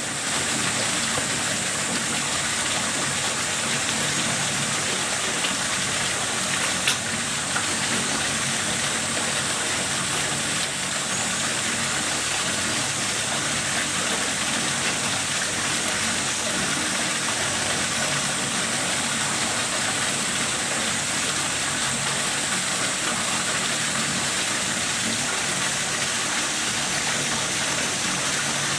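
Steady rush of flowing water in an otter enclosure's pool, with a low steady hum beneath and a single short click about seven seconds in.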